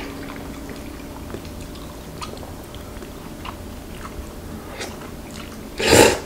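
A person eating chewy spicy jjolmyeon noodles with chopsticks: faint scattered clicks and chewing, then one short loud slurp of noodles near the end.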